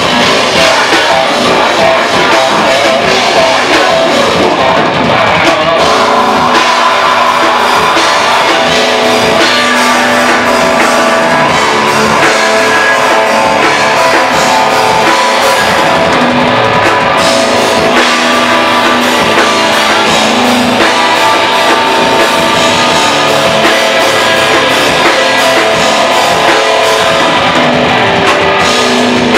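Live heavy metal band playing loud and without a break: electric guitars, bass guitar and drum kit.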